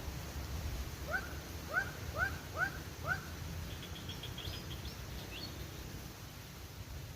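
A bird calling: five short rising notes about half a second apart, then a quick run of faint, higher twittering notes, over a steady low outdoor rumble.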